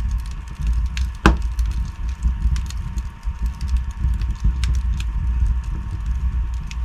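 Wood fire burning in a fireplace: a steady low rumble of flames with scattered crackles and pops, one sharp, louder pop about a second in.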